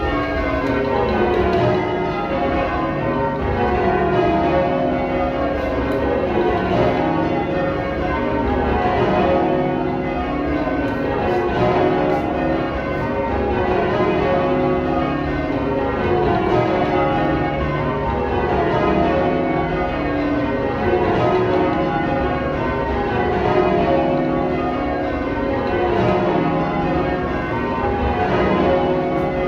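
A ring of twelve church bells, tenor 28-2-16 cwt in C sharp, rung full circle in change ringing: the bells strike one after another in descending runs, repeating steadily.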